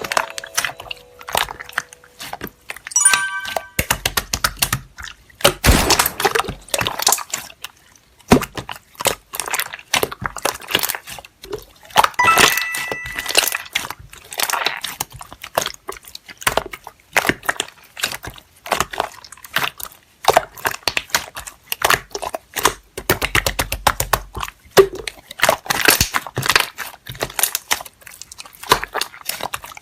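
Slime being pressed and kneaded by hand, giving off a fast, irregular string of crackling pops and clicks.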